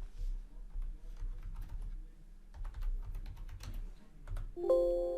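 Typing on a computer keyboard, quick irregular keystrokes. Near the end a short chime of several tones sounds and fades out.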